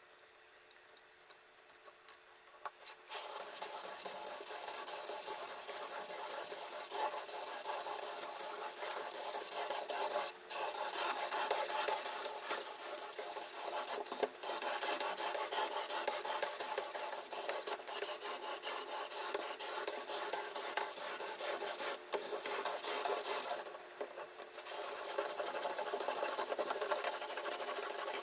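Diamond sharpening plate on a fixed-angle guided knife sharpener scraping back and forth along the edge of a clamped steel kitchen knife. The continuous rasping strokes start about three seconds in and break off briefly a few times, with a quieter spell near the end.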